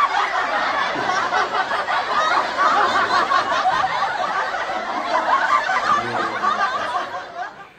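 A group of people laughing together, many voices overlapping, fading out near the end.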